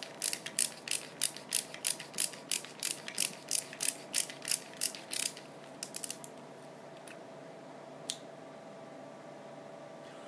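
Ratcheting screwdriver clicking in a steady rhythm of about three clicks a second as a screw is turned out of a plastic RC gearbox housing. The clicking stops about halfway through, then comes a short quick cluster of clicks and one last single click.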